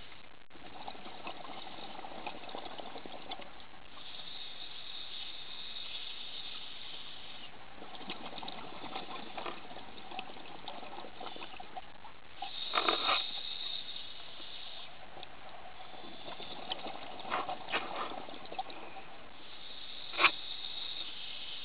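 Scuba diver breathing through a regulator, recorded underwater: hiss and bubbling come and go in slow breath cycles of several seconds. A few sharp clicks or knocks sound in the second half, the loudest near the end.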